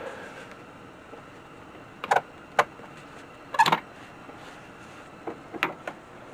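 A few short, sharp knocks and clicks of parts and tools being handled, in loose groups, with the loudest cluster near the middle; a faint steady hum underneath.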